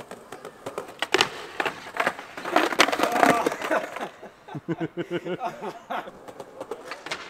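Skateboard deck and wheels clacking and slamming on stone pavers and a wooden ledge in a string of sharp knocks, loudest about one to four seconds in, as a darkslide attempt fails and the skater crashes onto the ledge. A person's voice follows near the end.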